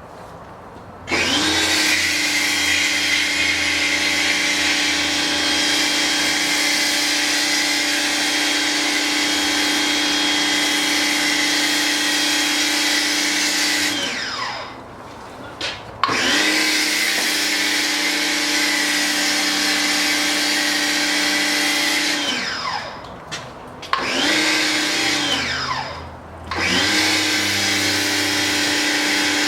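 Ryobi 1,600 psi electric pressure washer running while spraying through a foam cannon: a steady motor-and-pump whine with a spray hiss. It starts about a second in and cuts out and restarts three times as the trigger is released and pulled, the pitch falling away at each stop; the third run is only about two seconds long.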